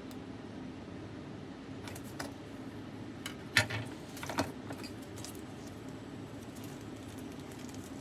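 Sharp clicks and light metallic taps from desoldering tools on a circuit board, the loudest about three and a half seconds in and another just under a second later, over a steady low hum.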